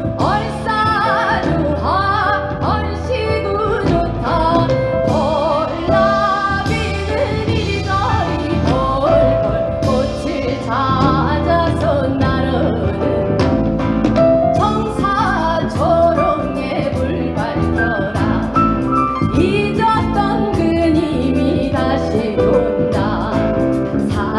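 A woman sings a Korean minyo folk song in traditional sori style, her voice bending and wavering between notes. She is backed by a live band with drum kit and keyboard playing the song in a Spanish fandango rhythm.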